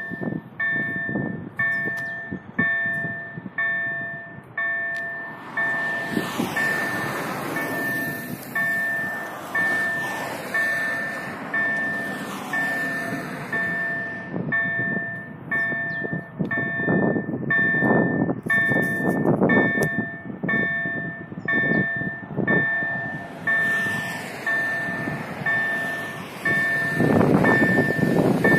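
Level crossing's automatic warning signal sounding its electronic bell, an even chime repeating about three times every two seconds, the warning that a train is approaching. Near the end the approaching electric multiple unit's running noise swells under the chimes.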